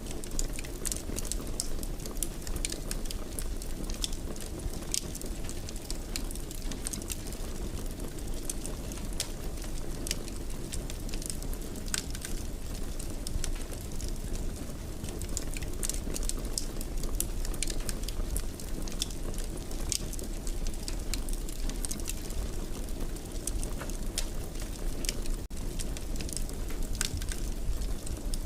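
Wood fire crackling in a fireplace: a steady low rumble with many irregular sharp pops and snaps.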